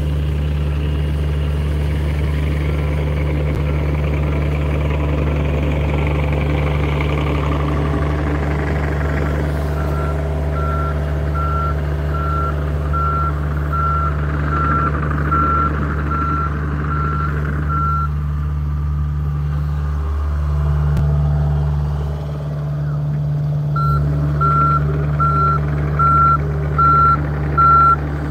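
John Deere 50G compact excavator's diesel engine running steadily under hydraulic load. Its travel alarm beeps at one pitch, a little more than once a second, while the machine tracks: a run of beeps about a third of the way in that stops after several seconds, then starts again near the end.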